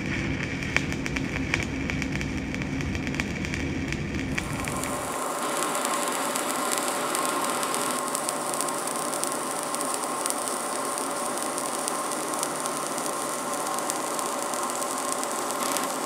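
Stick (shielded metal arc) welding arc crackling and hissing steadily as the electrode burns. A low hum underneath drops out about five seconds in.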